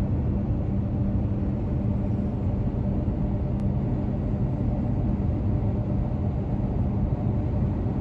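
Steady engine and road rumble of a moving car, heard from inside the cabin.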